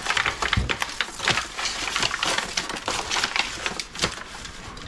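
Dense, irregular crinkling and crackling of hands seasoning and turning raw turkey carcass pieces, thinning out near the end.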